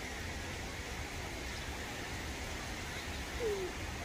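Steady open-air beach ambience: a low wind rumble on the microphone under an even hiss of small waves and a distant crowd. One short falling call comes about three and a half seconds in.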